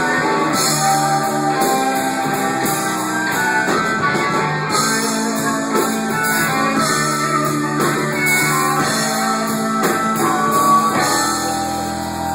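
Band music led by guitar, with a drum kit; about eleven seconds in it settles into a held chord.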